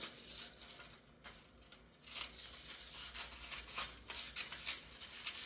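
Scissors cutting through black construction paper in a run of short snips, with the paper rustling as it is turned.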